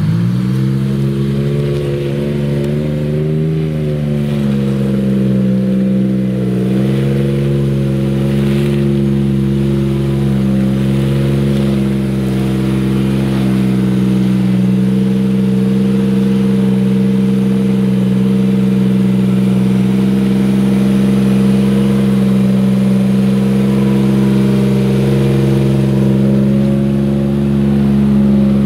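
An off-road SUV's engine held at high, nearly constant revs while it drives through deep mud. The pitch wobbles briefly a few seconds in, then stays steady.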